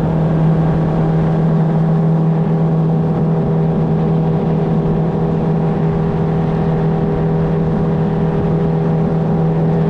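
Boat motor running loudly at a steady speed, a constant drone with an even hum over a rumbling wash, as the boat runs across the lake.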